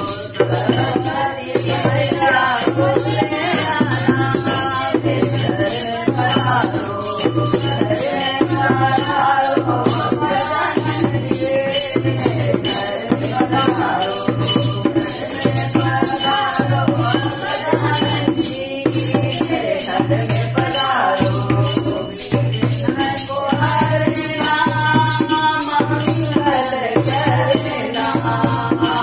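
Women singing a Hindi devotional bhajan in chorus to a steady rhythm of jingling tambourine and hand-held jingle clappers, with a regular low dholak drum beat underneath.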